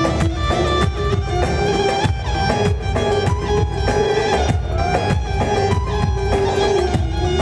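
Band playing upbeat Turkish folk dance music: a steady driving beat under a lead melody line.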